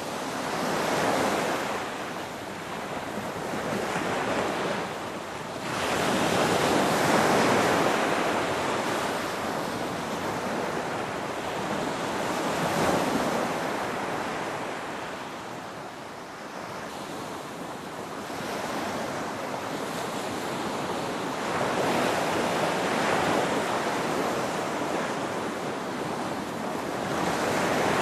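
Ocean waves breaking and washing on the shore, a steady roar of surf that swells and recedes every few seconds.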